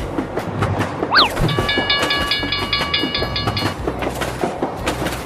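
Train wheels clattering over rail joints in a steady clickety-clack. About a second in there is a quick falling glide, and then a train horn sounds a steady multi-note chord for about two seconds.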